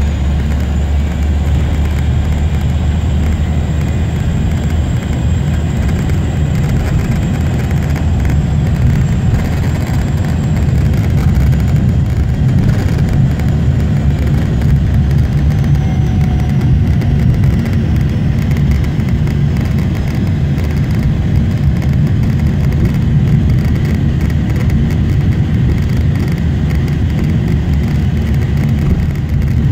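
Cabin noise of a Cessna 208 Caravan's Pratt & Whitney PT6A turboprop engine and propeller, heard from inside the cabin as the aircraft rolls along the airstrip. The noise is loud and steady and strongest in the low range, with a faint high whine that fades away about halfway through.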